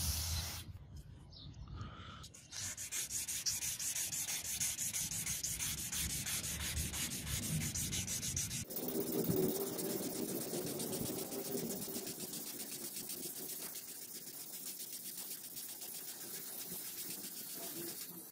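Hand-sanding a spring-steel knife blade with a sanding block: quick, even back-and-forth rubbing strokes, several a second, starting about two seconds in. The scratch changes in tone about halfway through.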